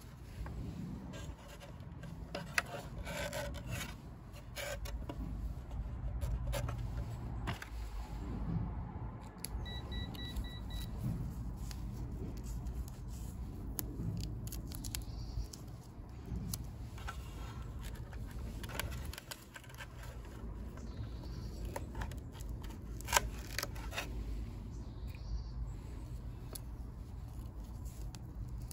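Handling noise from a plastic mobility-scooter battery box and its wiring: scattered clicks, knocks and scrapes over a steady low rumble, with a brief run of short high beeps about ten seconds in.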